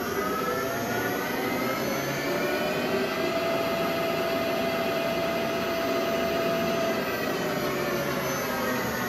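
Metal lathe's three-phase motor and headstock gearing, run by a variable frequency drive, whining as the chuck spins in reverse. The whine of several tones rises in pitch over the first few seconds as the drive ramps the motor up, holds steady, then starts to fall near the end as it ramps down.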